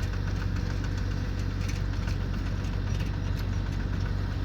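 Engine of a rice combine harvester running steadily with a strong low hum and a light mechanical clatter over it.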